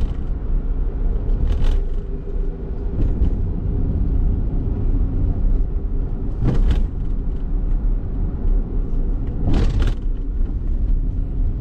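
Honda kei car driving on the road: a steady low rumble of engine and tyres, with three brief whooshes that swell and fade, at about two, six and a half and ten seconds in.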